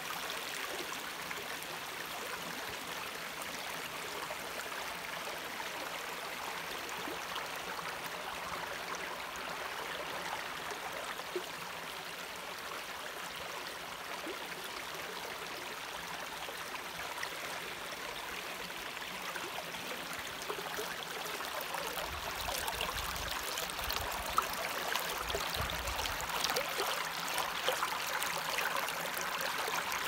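Small stream flowing over a low stone weir and rocks: a steady rush and babble of running water, growing louder and splashier in the last third.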